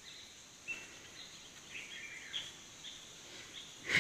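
Quiet forest ambience: scattered short, high bird chirps over a faint steady high hiss. A brief louder noise comes at the very end.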